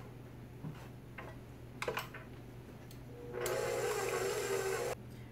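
Electric stand mixer motor running briefly, about a second and a half, with a steady whine that cuts off abruptly, mixing a cream cheese filling. Before it, a few light clicks of a utensil against the steel bowl.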